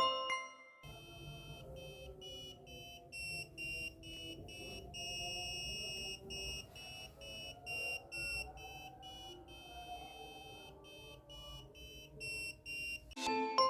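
Electronic ringtone beeping: short high-pitched beeps at about three a second, some held longer, over a faint lower melody. It starts about a second in and stops shortly before the end.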